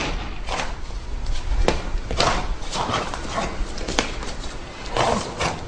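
Irregular sharp thumps and swishes, about eight in all, from fast Chen-style taijiquan moves: foot stamps and quick body movements over a low rumble.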